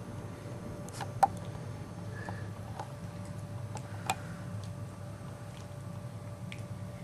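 Chihuahua puppies gnawing and tussling over knotted chew bones: a few scattered sharp clicks and knocks of teeth on bone, the loudest about a second in and another about four seconds in, over a steady low hum.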